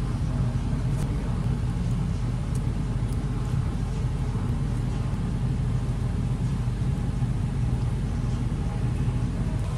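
Steady low mechanical hum and rumble, even in level throughout, with a few faint light clicks.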